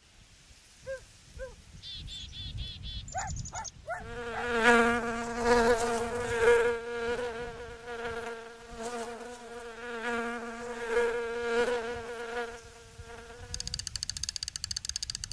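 Insect buzzing: a pitched, wavering buzz about eight seconds long, preceded by a few short chirps and a fluttering high trill, and giving way near the end to a fast, high-pitched wing flutter.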